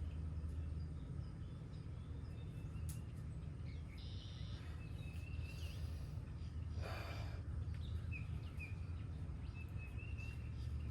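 Songbirds chirping in short, scattered calls over a steady low background rumble, with a brief rushing noise about seven seconds in.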